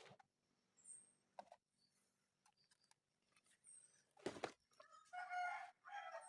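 Scattered light clicks and one louder knock about four seconds in, then a pitched animal call in two parts near the end, tagged as a rooster crowing.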